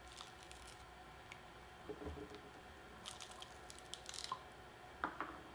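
Faint crackling and tearing of a pomegranate's rind and inner membranes as the fruit is pried apart by hand, in scattered small crackles with a denser run about three seconds in.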